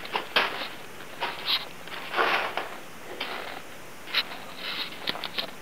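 Irregular scuffing and rustling noises, a few short scrapes a second with no steady tone, like footsteps and clothing or camera handling.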